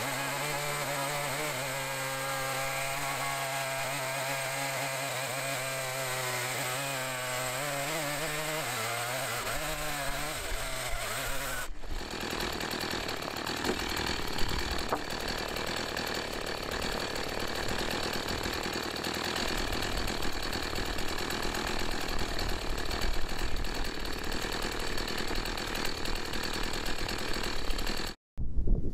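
Stihl MS 170 two-stroke chainsaw idling steadily, its pitch wavering briefly before it stops about twelve seconds in. After that comes a rushing noise with scattered knocks and one sharp knock, as the sawn board and slab are handled.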